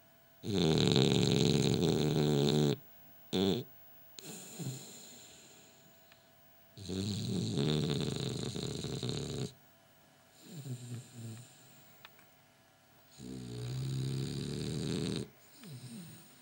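A French bulldog snoring in its sleep: three long, loud snores, each two to three seconds, about six seconds apart, with shorter, softer breathing sounds between them.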